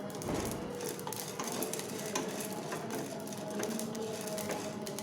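Black pepper, cumin and coriander seeds dry-roasting in a hot pan, crackling with scattered, irregular small pops as they toast.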